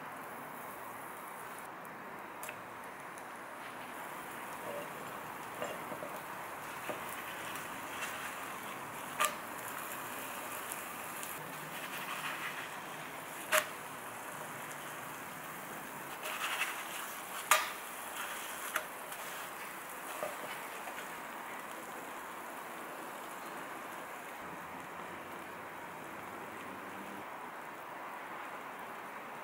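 A pancake frying in butter in a nonstick pan, sizzling steadily, with a few sharp clacks of the spatula against the pan.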